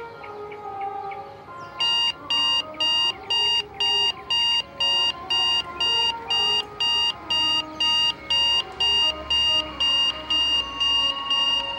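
Digital alarm clock beeping: a steady, high-pitched beep repeated about twice a second, starting about two seconds in, over soft background music.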